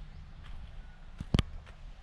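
Footsteps of the person walking with the camera, faint regular taps, with one sharp double knock about a second and a half in.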